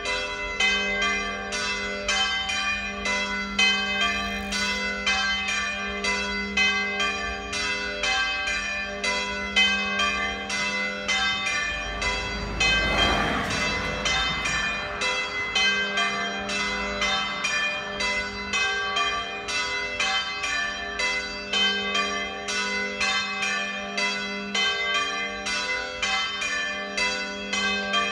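Concert of three swinging church bells ringing together in full peal (plenum), strokes of several pitches overlapping at about three a second. A brief rush of noise comes about halfway through.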